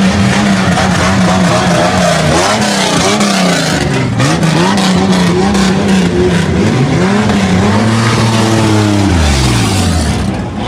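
Car engine held at a steady high pitch, then revved repeatedly, its pitch climbing and falling in several sweeps before dropping near the end.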